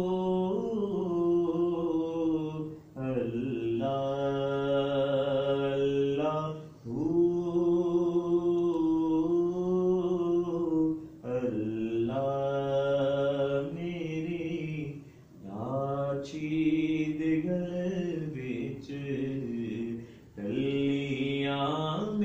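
A man's voice chanting a devotional recitation without instruments, in long held melodic phrases of a few seconds each with short pauses for breath.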